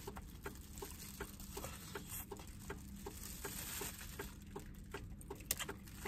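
A man chewing and gnawing on a whole braised chicken (shaoji): a quick, steady run of soft wet mouth clicks, about three or four a second.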